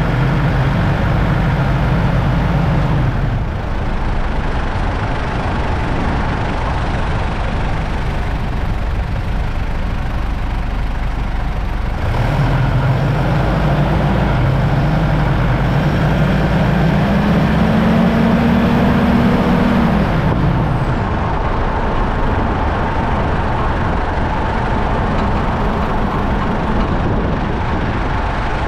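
Mitsubishi Pajero driving over steady road noise. The engine note eases off a few seconds in, then climbs steadily for several seconds before dropping away again.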